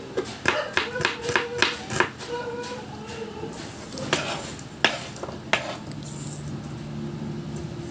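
Kitchen knife slicing a red onion on a wooden chopping board: quick chops, about four or five a second, for the first two seconds, then a few single knocks on the board.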